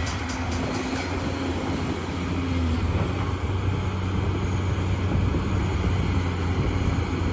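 Heavy machine's engine running steadily: a low drone, with a fainter higher tone over it for the first few seconds.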